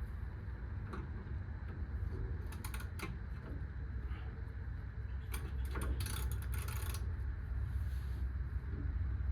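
Metal clinks and rattles of hand tools and suspension parts being worked on, in a few short clusters, the densest about six to seven seconds in, over a steady low hum.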